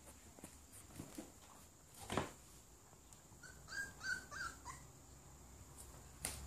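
A puppy gives about four short, high whimpers in quick succession, past the middle. A single knock comes just before them, about two seconds in.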